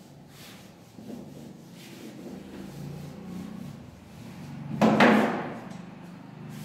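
Whiteboard duster rubbing across a whiteboard in soft repeated strokes, then one much louder, sudden half-second stroke or knock about five seconds in.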